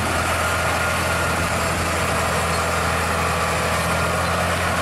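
Scania heavy truck's diesel engine running with a steady, deep drone as it pulls a loaded double side-tipper trailer.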